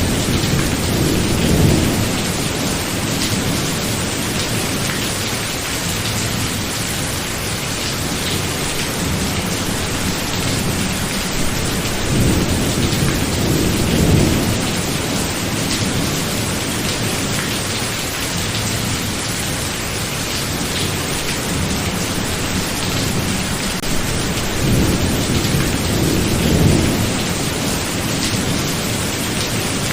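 Thunderstorm: steady heavy rain with three low rolls of thunder, one at the start, one a little before halfway and one near the end.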